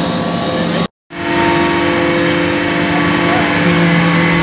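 Hydraulic metal-chip briquetting press running with a steady, even machine hum of several constant tones. The hum cuts out completely for a moment about a second in, then resumes.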